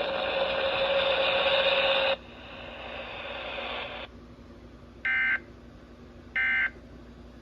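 Radio hiss cuts off about two seconds in and a fainter hiss stops about four seconds in. Then come two short, identical bursts of warbling data tones about a second and a half apart: the Emergency Alert System's end-of-message code, which closes the monthly test.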